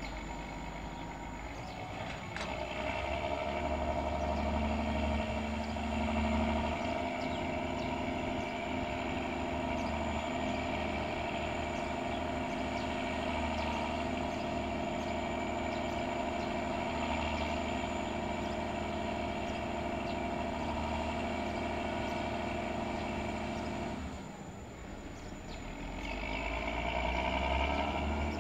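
Diesel engine of a container reach stacker running steadily under load with a droning pitched hum. It eases off briefly near the end, then picks up again.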